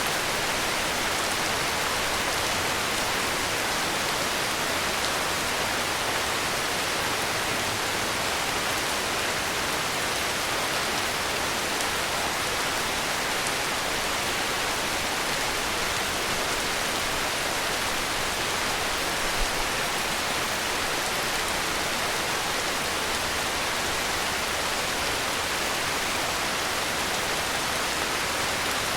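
Heavy rain falling steadily: a dense, even hiss of rainfall with no pauses. There is one brief low thud about two-thirds of the way through.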